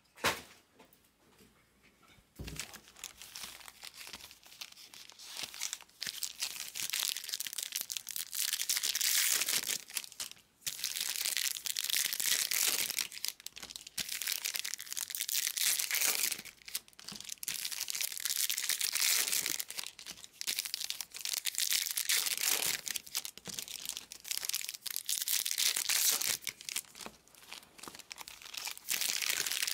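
Foil trading-card pack wrappers being torn open and crinkled, a continuous crackly rustling that swells and eases, starting a couple of seconds in after a single sharp click at the very start.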